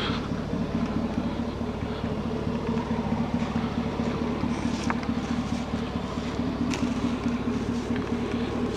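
Truck engine idling steadily, with a couple of faint clicks.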